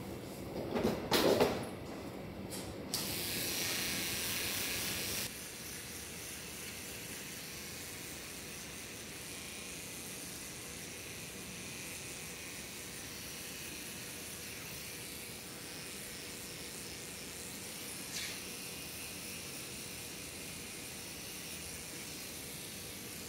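Small electric hair trimmer running steadily while cutting hair at the nape and sides. A hiss lasts about two seconds near the start.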